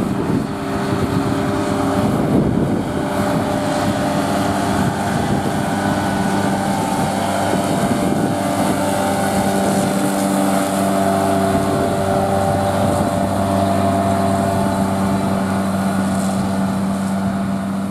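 Valtra N123 tractor running steadily under load while a side-mounted Kuhn GMD 310 disc mower cuts alfalfa: a constant engine hum with a steady machine whir over it.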